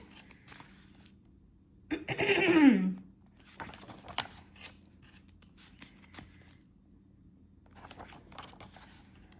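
Paper photo cards and packaging being handled: faint rustling and light clicks of card and plastic. About two seconds in, a short falling vocal exclamation, the loudest sound.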